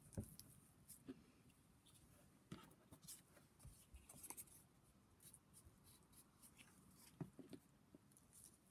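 Near silence with a few faint scattered taps and rustles: paper shapes, a pipe cleaner and a glue stick being handled on a cutting mat.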